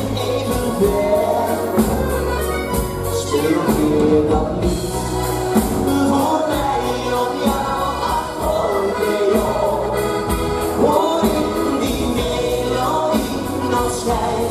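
Live Dutch pop music: two piano accordions and a band playing, with a man singing into a microphone.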